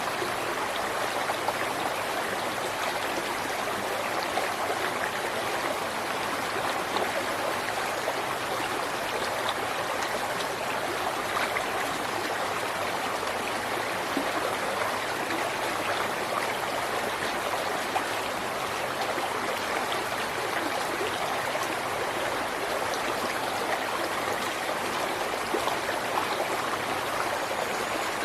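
River water flowing and burbling steadily over stones, a continuous even rush with small splashes.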